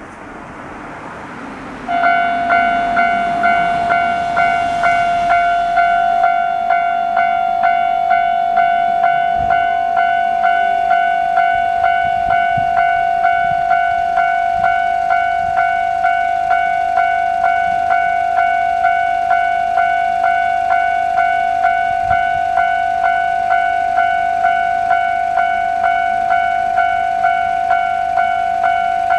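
Japanese railway level-crossing electronic warning bell (the standard tone), switching on about two seconds in and then ringing a fast, even ding-ding-ding. It stays loud and is not turned down once the barriers are lowered.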